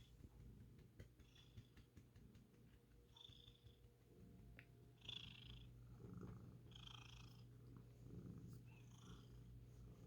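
Domestic cat purring steadily while being petted, a low continuous hum, with soft rustles of the hand stroking its fur about every two seconds.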